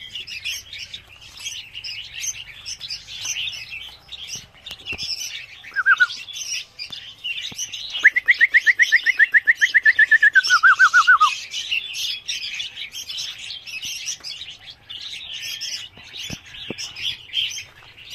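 A cage-full of young red-whiskered bulbuls chirping continuously in high, overlapping calls. A short trill sounds about six seconds in. From about eight seconds to eleven, one bird gives a much louder rapid trill of some twenty quick notes, which drops in pitch at the end.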